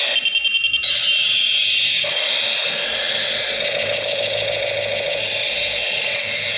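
Battery-operated toy helicopter's electronic sound effect from its small speaker: a high, wailing siren-like tone that rises and falls. A quick run of rapid beeps comes in the first second.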